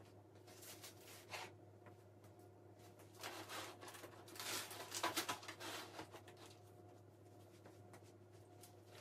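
Faint rubbing and rustling of kitchen cleaning work, in a short burst about a second in and a longer, louder spell from about three to six seconds in, over a steady low hum.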